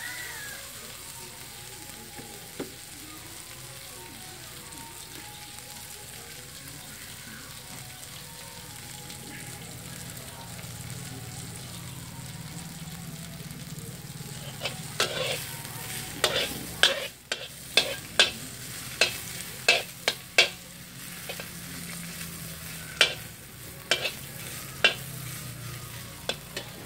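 Food sizzling steadily in a steel wok over a wood fire. From about halfway a metal spatula scrapes and knocks against the wok in quick sharp clinks, in two runs, the second near the end.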